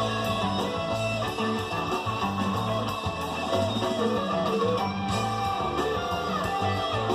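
Guitar-led music, plucked and strummed guitar over a steady bass line.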